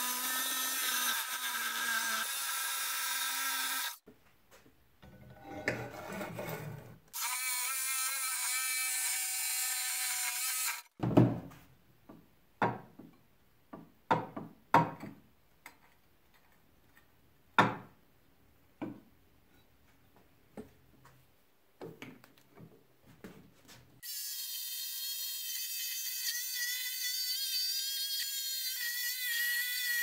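Bosch jigsaw with a blade too fine for aluminum, cutting aluminum sheet in stop-start runs of a few seconds. In the middle comes a stretch of separate sharp knocks and clanks as aluminum pieces are handled. Near the end the saw runs again, steadier and higher-pitched.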